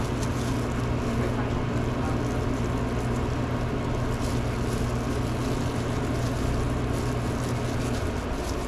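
Steady machine hum: a low drone with fainter steady tones above it, over an even rushing noise; the low drone fades away near the end.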